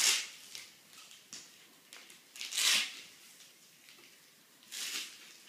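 Nylon band of a Combat Application Tourniquet being fed through its buckle and pulled around a leg: three short scraping swishes, at the start, near the middle and near the end.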